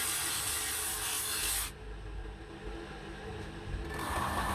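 A steel brake shoe is ground against a bench grinder's abrasive wheel, giving a loud, even hiss that cuts off abruptly about a second and a half in as the shoe is lifted away. Afterwards it is quieter, and near the end a steady whine sets in.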